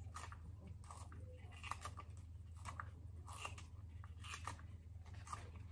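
Kitchen knife chopping vegetables on a wooden cutting board: a slow, irregular run of faint crisp cuts, over a steady low hum.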